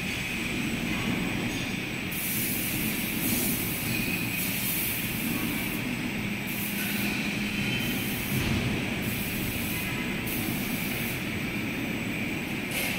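Steady machine-shop machinery running: a continuous low hum with a high whine above it.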